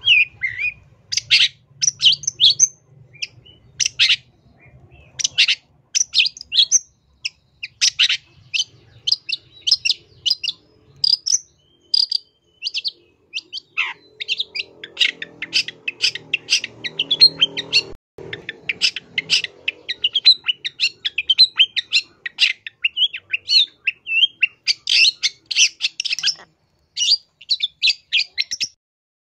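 Long-tailed shrike (cendet) singing vigorously: fast runs of short, sharp chattering notes with brief pauses, a song full of mimicked calls.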